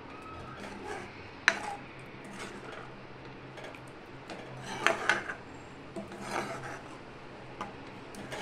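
A metal spoon scraping around a kadhai as it stirs a thin, watery masala gravy, with a few sharp clinks of the spoon against the pan, the loudest about a second and a half in and about five seconds in. A faint steady hum runs underneath.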